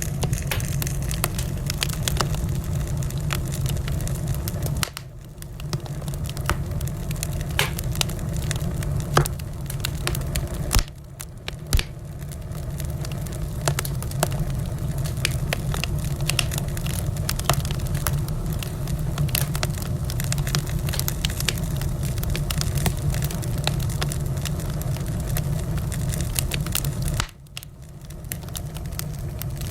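Wood fire crackling, with many sharp pops over a steady low rumble; the sound dips briefly three times.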